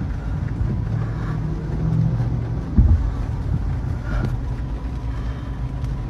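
Pickup trucks driving past on a street, a steady low rumble of engines and road noise heard from inside a car, with a dull thump about three seconds in.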